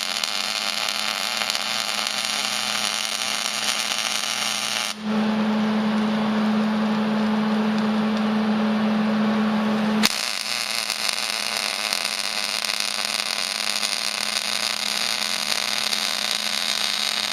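MIG welder arc crackling as a steel plate is welded onto the frame, in two runs: the arc stops at about five seconds, leaving a steady hum, and starts again at about ten seconds.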